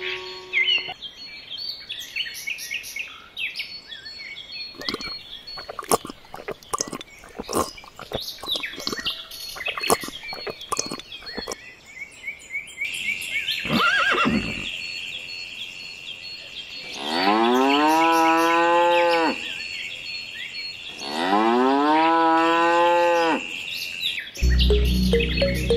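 A cow mooing twice, two long calls of about two seconds each that rise and then hold, after a busy first half of short clicks and chirps. A deep low sound comes near the end.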